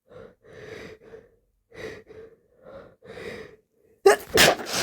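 A person's pre-sneeze breathing: several short, catching inhales, then near the end a loud, wet sneeze into a tissue.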